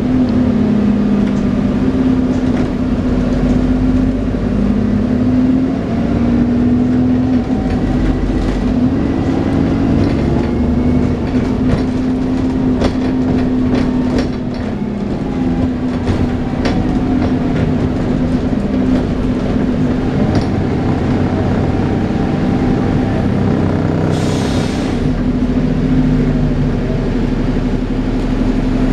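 Dennis Trident 2 double-decker bus with Alexander Enviro 400 body heard on board as it drives. Its drivetrain hums steadily with a wavering hoovering whine, over clicks and rattles from the body. Near the end there is a short burst of hiss.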